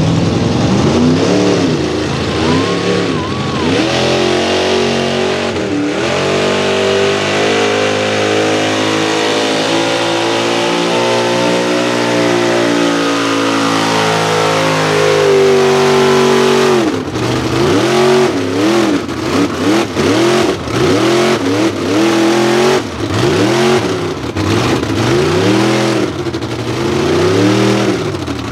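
Engine of a lifted 1971 Ford mega truck at full throttle pulling a weight sled. The pitch swings up and down a few times, then climbs slowly and steadily for about ten seconds. From there it surges up and down about once a second as the truck wheelstands, the throttle being worked to control the wheelie.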